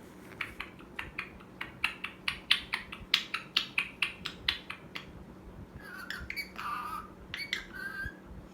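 Pet parrot making a quick run of short, sharp chirping clicks, about five a second, then a few longer pitched calls that bend up and down in pitch near the end.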